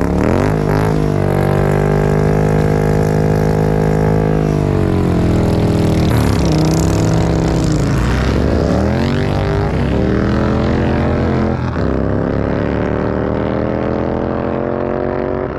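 An engine running with a steady deep drone. Its pitch drops and climbs again a few times as it is revved.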